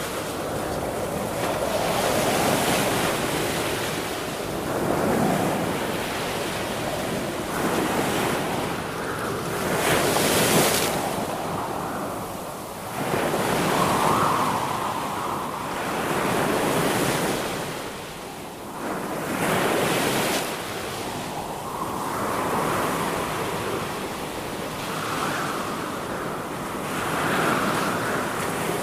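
Sea waves breaking and washing on a shore, swelling and ebbing every few seconds, with one louder surge about ten seconds in.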